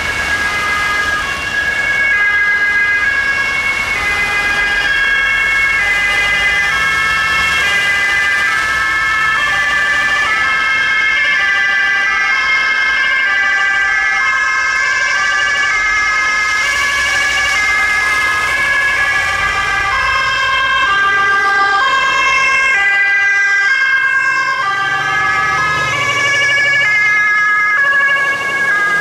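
Several fire engines' two-tone sirens sounding together, each alternating between a high and a low note, overlapping out of step, with a steady tone held under them. A heavy truck engine is heard going past in the last few seconds.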